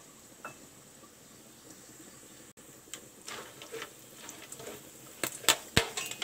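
Whole spices (cinnamon, bay leaves, cloves) frying in hot ghee and oil with a faint sizzle. From about halfway, a wooden spatula stirs them around the pan, with crackling and several sharp clicks near the end.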